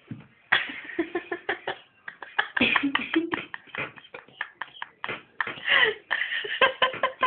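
A person's voice making rapid non-word vocal noises and mouth clicks in quick, choppy bursts, with no clear words.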